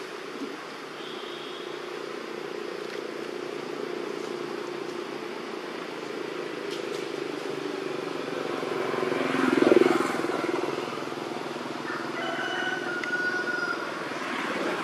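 Steady engine hum of a passing motor vehicle, swelling to its loudest about two-thirds of the way through and then fading.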